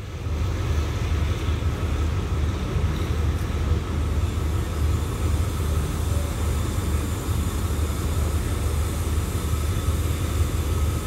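Alsthom diesel-electric locomotive running, a steady low engine rumble with faint steady whining tones above it.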